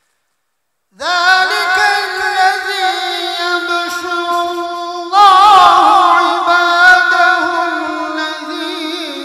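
A man's voice reciting the Quran in melodic tajweed style: after about a second of silence he begins one long, drawn-out, ornamented phrase, which grows louder and wavers in pitch about five seconds in.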